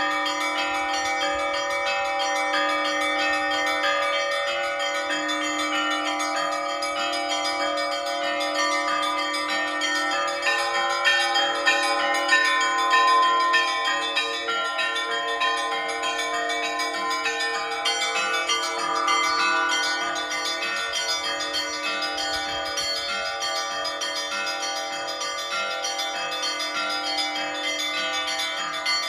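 Orthodox church bells ringing together: small bells struck in quick, repeating patterns over the long, sustained ringing of the larger bells, a little louder about a third of the way in.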